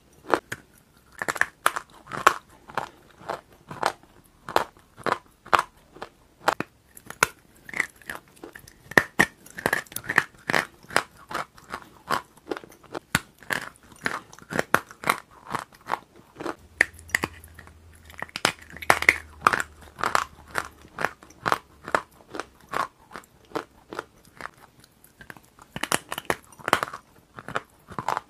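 Close-miked biting and chewing of a hard, crumbly white chunk: a steady run of sharp crunches, several a second.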